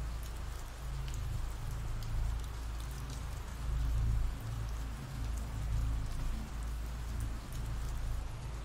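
Steady rain falling, an even hiss with a low rumble underneath that swells briefly about four seconds in.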